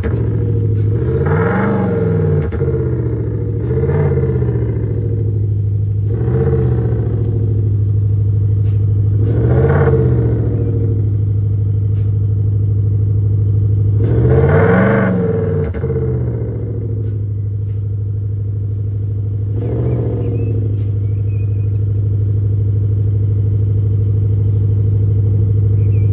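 Audi Q8 diesel running through an Xhaust active exhaust sound system set to a V8-like sound: idling steadily with six quick rev blips that rise and fall in pitch, the longest and highest about fifteen seconds in, then settling back to idle.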